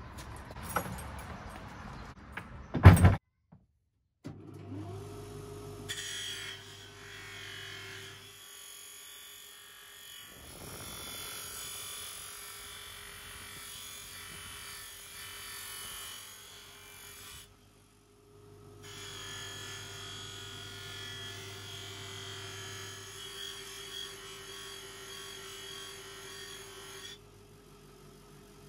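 Vintage Viceroy bench buffer's electric motor spinning up with a quickly rising whine, then running with a steady hum. From a couple of seconds later, the cam cover's metal end caps are pressed against the polishing wheel, adding a steady hissing rub, with a short break partway and the rubbing stopping near the end. Just before the motor starts there is a loud knock.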